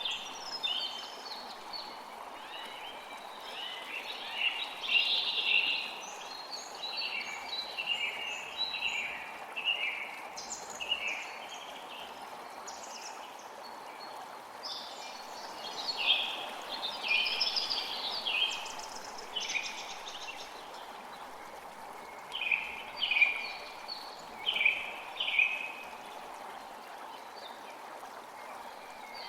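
A creek running steadily, with songbirds calling and singing over it in short repeated phrases, busiest near the middle; a run of four loud, sharp calls comes about two-thirds of the way through.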